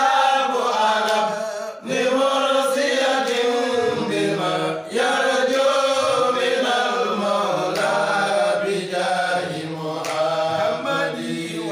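Group of men chanting an Islamic devotional hymn together, in long held phrases with short breaks between them.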